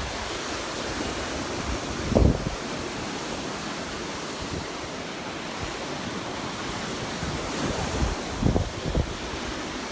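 Surf washing onto the beach in a steady hiss, with wind buffeting the microphone in short gusts about two seconds in and again near the end.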